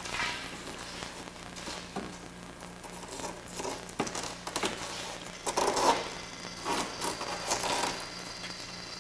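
Hand-work handling noise on an aircraft wing skin: irregular rustling and scraping with a few light clicks as clamps are fitted along its edge, busiest a little past halfway.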